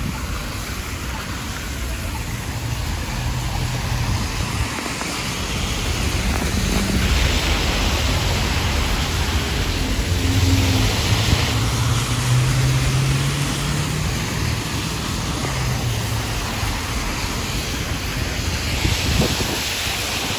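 Steady rain with traffic on wet roads: tyres hissing past, swelling as cars go by, and an engine hum that rises briefly about halfway through.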